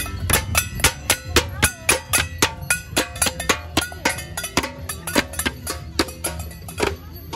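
Percussion-led music: quick, sharp strikes about four or five a second, with a faint melody underneath.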